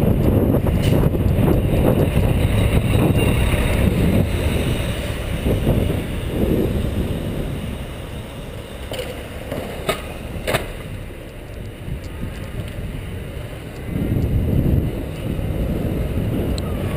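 Wind buffeting the microphone of a camera on a moving bicycle, a heavy low rumble mixed with road noise. It eases off for a few seconds in the middle and picks up again near the end, with a few sharp clicks around ten seconds in.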